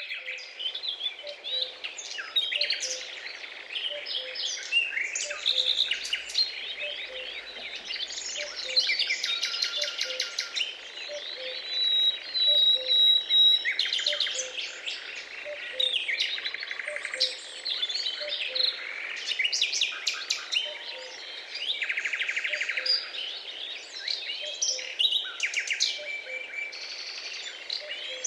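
A flock of small birds chirping and chattering at once in a dense, continuous chorus of quick trills and tweets. A soft low note repeats about twice a second underneath, and a single steady whistle is held briefly about halfway through.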